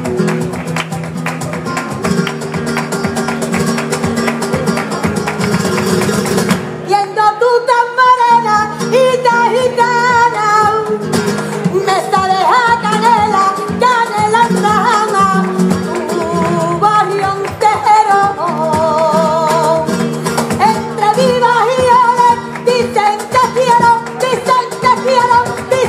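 A woman singing a flamenco saeta, her voice coming in about seven seconds in with long wavering, ornamented melismas. Held low notes sound beneath throughout.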